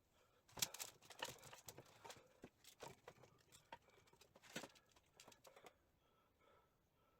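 Hand tools clicking and scraping against metal gearbox parts: a run of light, irregular clicks and short scrapes lasting about five seconds, the first click the loudest.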